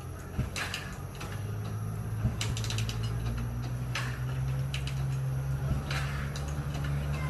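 Kick-start attempts on a Honda motorcycle: mechanical clicks and clatter from the kick lever and engine turning over, repeated every second or two, over a low steady hum that swells about a second in.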